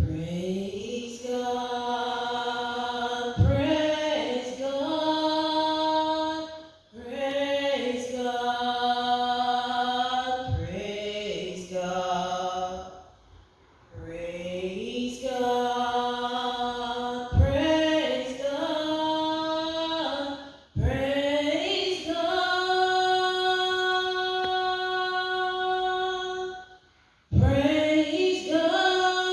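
A woman singing solo and unaccompanied: long held notes with slides between them, in phrases broken by short pauses for breath.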